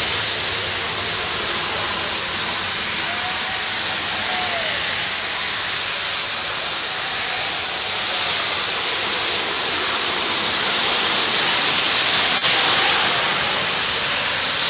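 BR Standard Class 4 2-6-0 steam locomotive 76079 hissing steam as it runs into the station, the hiss growing louder as the engine draws alongside. A couple of faint squeals sound about three seconds in.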